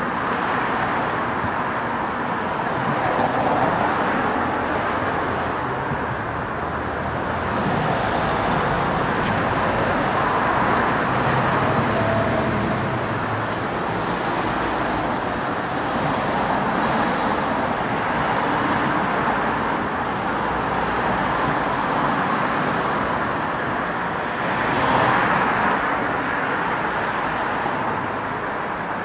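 Road traffic: a steady wash of cars going by, swelling now and then as a vehicle passes close, notably near the end.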